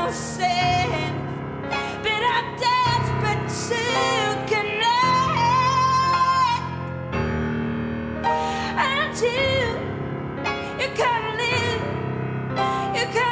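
A recorded ballad with a woman singing over instrumental backing, her notes wavering with vibrato. One long note is held from about five to six and a half seconds in.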